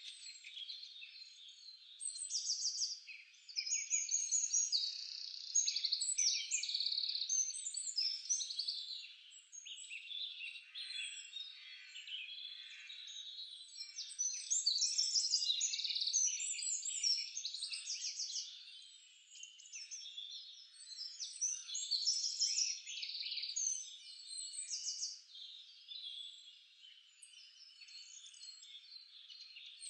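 Birds chirping and trilling without a break, many short high calls overlapping, in louder and quieter stretches.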